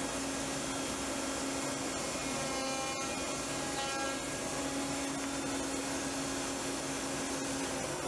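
Router in a router table running at speed with a flush trim bit, a steady hum and hiss. The hum breaks for about two seconds in the middle, while a plywood part is pushed past the bit to trim off its tabs.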